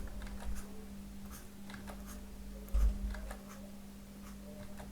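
Pen stylus scratching across a drawing tablet in short, quick strokes, over a steady low hum, with a low thump a little before three seconds in.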